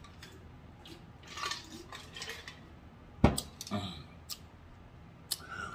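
Quiet drinking and swallowing from a cup, then a single sharp knock about three seconds in as the cup is set down on the wooden table, followed by a few small mouth clicks.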